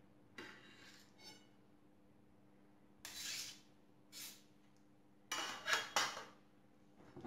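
Metal knife and spatula scraping and clinking against a metal cake pan and a china plate while a slice of semolina cake is cut and served: a few separate scrapes, the loudest group about five to six seconds in.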